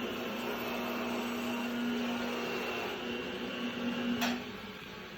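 A steady motor hum from shop machinery, with a held tone, ending with a sharp click about four seconds in as it winds down.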